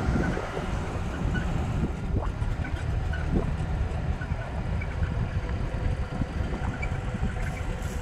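Vehicle running slowly along a dirt track, a steady low rumble of engine and tyres, with wind buffeting the microphone.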